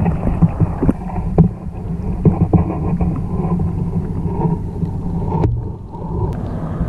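Water sloshing and scattered knocks and taps, heard muffled through a camera submerged in the river, with the highs cut off.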